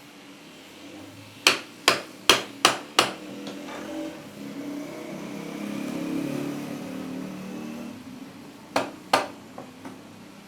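Hammer blows in the workshop: five quick sharp strikes at about three a second, then two more near the end with a couple of lighter taps after. Between them a low hum swells and fades.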